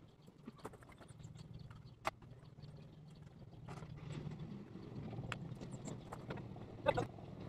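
Footsteps on a concrete driveway coming closer, over a low steady hum that grows slowly louder, with scattered clicks and one sharper click about two seconds in. A short high-pitched cry sounds near the end.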